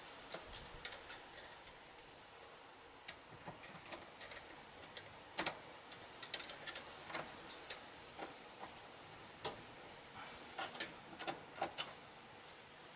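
Scattered small metallic clicks and taps, irregular and quite faint, from working the retaining clip into its groove above the fork seal in a motorcycle fork leg. The sharpest click comes about five and a half seconds in.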